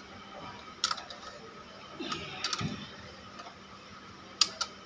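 Sparse sharp metal clicks and taps from a long socket bar working on the crankshaft pulley bolt while the engine is turned by hand after a timing-belt change, with a loud double click near the end.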